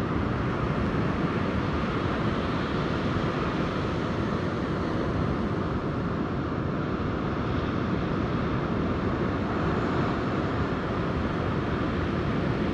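Ocean surf breaking on the beach, a steady wash of noise, with wind blowing on the microphone.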